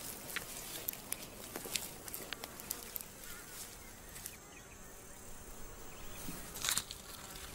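Insects buzzing in dry outback scrub, with scattered small clicks and rustles and a brief louder rustle near the end.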